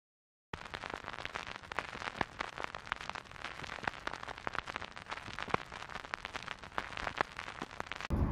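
Vinyl record surface crackle: a dense run of clicks and pops over a soft hiss from the stylus riding the groove, with no music. It starts suddenly about half a second in and cuts off near the end.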